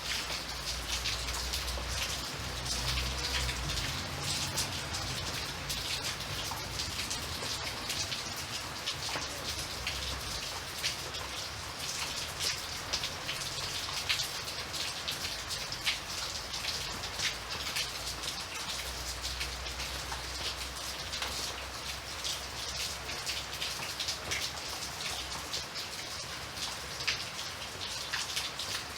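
Steady rain falling, a constant hiss made up of many small drop ticks. A low rumble sits underneath for the first few seconds and again a little past the middle.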